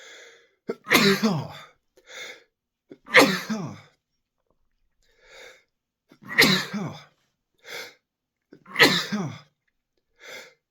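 A man in a sneezing fit: four loud sneezes two to three seconds apart, the voice falling in pitch through each one. Each sneeze is set off by a short, quieter catching breath about a second before it.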